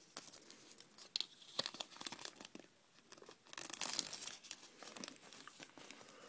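A thin folded paper instruction leaflet from a Kinder Surprise egg being unfolded by hand, crinkling and crackling in quick irregular bursts, loudest about halfway through.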